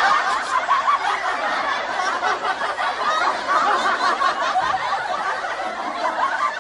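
Several people laughing together, their voices overlapping, trailing off near the end.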